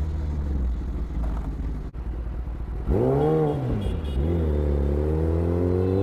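Kawasaki ZX-10R's inline-four engine running at low revs, then a quick rev that rises and falls about three seconds in, followed by a steadily rising pull as the bike accelerates.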